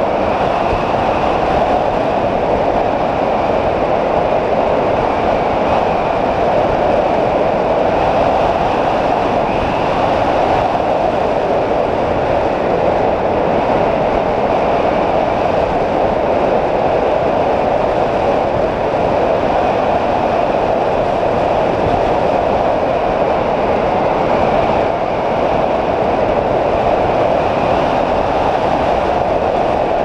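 Steady, loud rush of airflow over a wing-mounted GoPro on a hang glider in flight, with no breaks.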